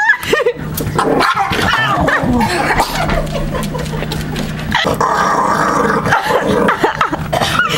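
Small dachshund growling and snarling continuously, with a few sharp barks, while guarding a large bone.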